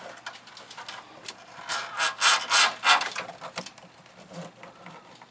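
Fish tape with the fog light wire taped to it scraping and rubbing as it is pulled back through the truck's body, a series of quick scraping strokes, loudest in the middle of the stretch and fainter toward the end.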